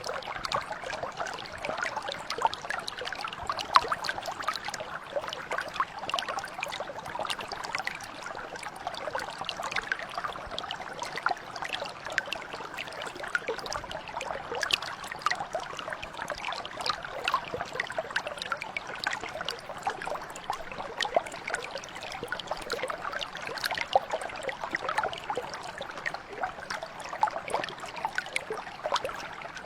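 Mountain brook flowing: a steady babbling of running water, full of small, quick splashes and bubbles.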